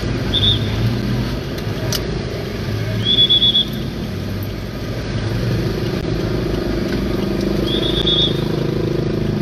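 Street traffic with motor vehicle engines running in a steady low rumble. Short bursts of rapid high beeping come three times over it.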